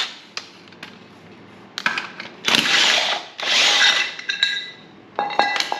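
Handheld power tool run in short bursts of about a second each while loosening motor mount bolts, with a ringing metallic clink near the end.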